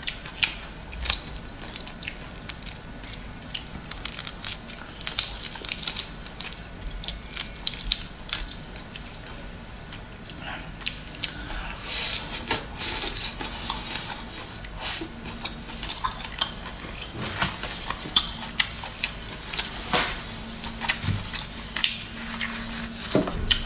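Cooked whole prawns peeled by hand, the shells crackling and snapping in many quick, irregular clicks, with biting and chewing on the prawn meat.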